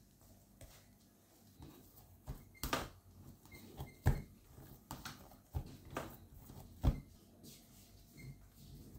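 Hands kneading and rolling soft bread dough on a flat work surface: quiet rustling broken by a few short thumps and knocks as the dough is pressed and pushed against the surface.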